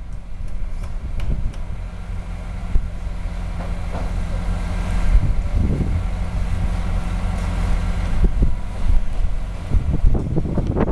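Mobile crane truck's diesel engine running steadily, with wind rumbling on the microphone and a few knocks near the end.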